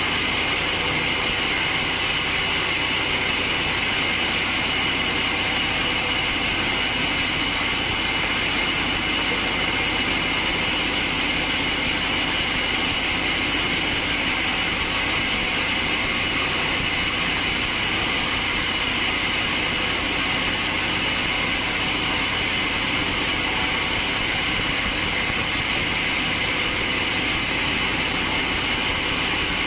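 A machine running steadily without a break, an even mechanical noise with a strong high hiss.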